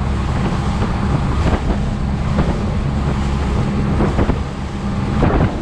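A motorboat's engine running steadily under way, a constant low hum, with wind on the microphone and water rushing past the hull, and a few faint knocks from the hull meeting the chop.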